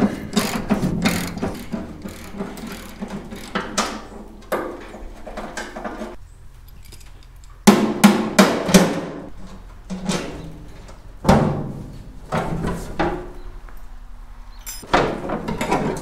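Socket ratchet clicking as the fender bolts are turned out, then several heavy metallic knocks and clanks as the loose sheet-steel tractor fender is handled and lifted.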